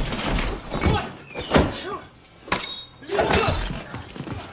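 Film fight sound effects: a series of hard thuds and blows with grunts of effort, and breaking glass.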